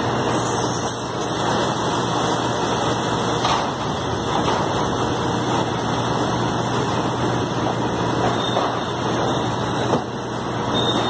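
Steady running noise of machinery, like an engine idling, with a constant low hum and a couple of brief knocks.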